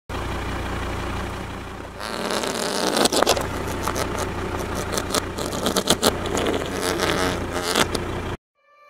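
Car engine running with a steady low hum while its tyre rolls on gravel over whoopee cushions. From about two seconds in there is loud crunching and crackling with sharp pops. It all cuts off suddenly near the end.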